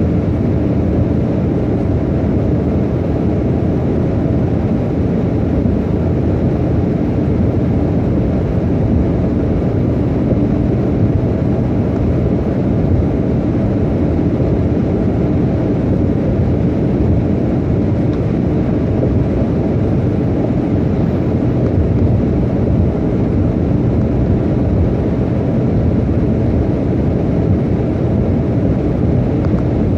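Steady road and engine noise inside a car cabin cruising at highway speed: an even, low rumble that holds constant throughout.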